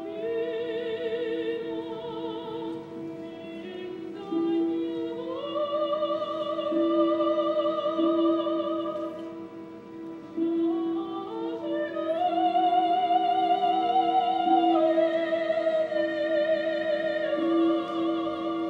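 Live opera performance: a sung voice with wide vibrato holds notes and twice slides upward to a higher held note. Under it, an orchestra sustains a steady note that is restarted every second or two.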